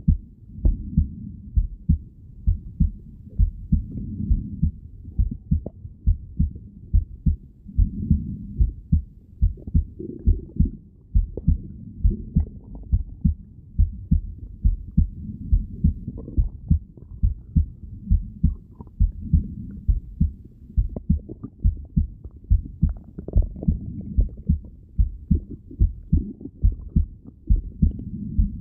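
Heartbeat heard through a stethoscope: a steady, regular run of low thumps.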